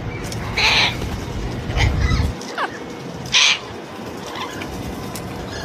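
Amazon parrots calling: two harsh squawks, one about half a second in and another past three seconds, with a few short falling whistles between them.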